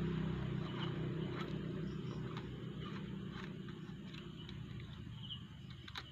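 Faint clicks and scrapes of a small tool prying at the switch inside an aluminium diving flashlight head, spaced about a second apart, over a low hum that slowly fades.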